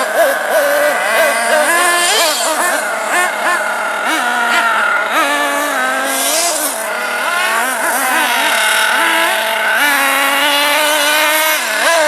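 Small nitro engine of a radio-controlled truggy running hard, its pitch rising and falling over and over as the throttle is worked.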